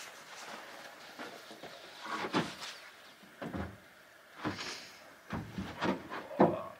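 Long sawn timber boards being slid out of a pickup bed, knocking and scraping against each other and the truck: a handful of separate wooden knocks and clatters, the loudest near the end.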